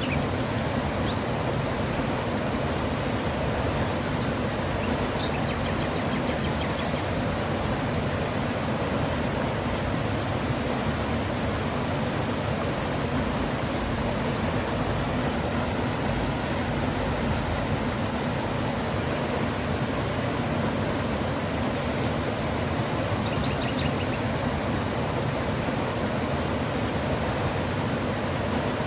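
Mountain river flowing: a steady, even rush of water. Over it a faint high chirp repeats about twice a second, and a few quick high chirps come about three-quarters of the way in.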